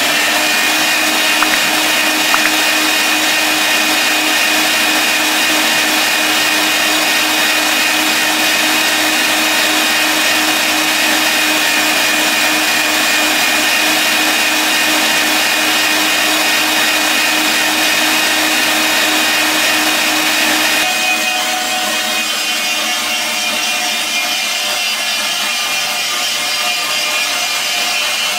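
Electric meat grinder's motor running steadily, with a steady whine, while grinding tofu. About twenty seconds in, its pitch shifts and it gets slightly quieter.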